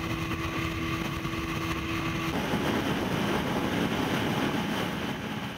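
Outboard motor of a bass boat running at speed, with wind and water rushing past. About two seconds in, the sound changes abruptly from a steady engine hum to a rougher rushing noise.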